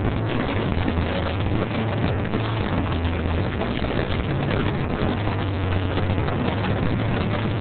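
Loud, steady, muddy din of a line-dancing session in a gymnasium, with a steady low hum running under it.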